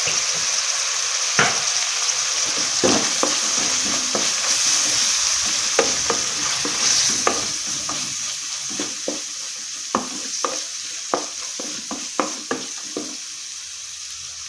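A spice masala with onions and fried coconut pieces sizzling in oil in a pan, stirred with a spoon that scrapes and taps against the pan many times. The sizzle dies down over the second half.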